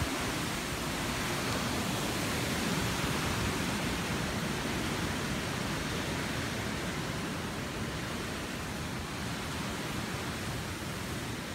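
Hurricane wind gusting through large trees, a steady rushing noise of tossing branches and leaves.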